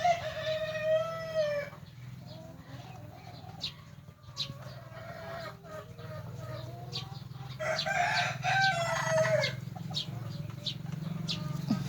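A rooster crowing twice, each crow a long drawn-out call of about two seconds, the second some six seconds after the first, over a steady low hum.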